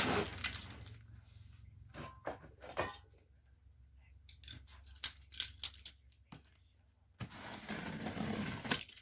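A bench grinder's box and packaging being opened and handled: scattered clicks and knocks, then about two seconds of rustling near the end.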